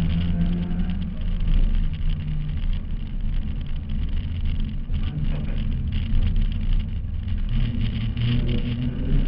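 Car engine running hard at speed on a dirt track, heard from a camera on the bonnet, with wind and road noise over it; the engine note drops lower about seven and a half seconds in.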